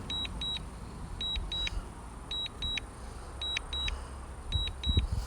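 Drone controller warning beeping in pairs, two short high beeps about once a second, the constant strong-wind warning while the DJI Neo struggles against the wind. Low wind rumble on the microphone runs underneath.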